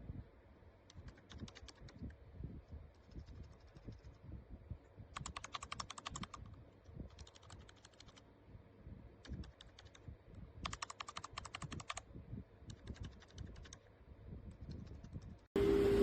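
Typing on a mechanical keyboard with Outemu switches: rapid key clicks in runs of about a second, with short pauses between. Just before the end a much louder sound with a steady tone cuts in.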